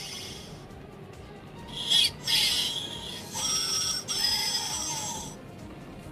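Ultimate Omnitrix toy watch playing its electronic sound effect for the Jetray crystal figure through its small speaker: a short hissing burst about two seconds in, then a longer stretch of pitched electronic tones that bend up and down.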